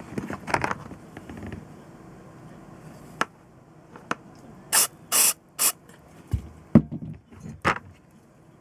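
Three short hissing spray bursts in quick succession, among scattered clicks and knocks of small parts and tools being handled.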